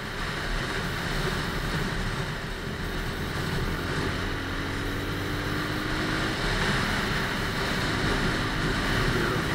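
Motorcycle engine running steadily under way, mixed with wind rushing over the microphone. In the middle a faint engine tone glides slightly upward.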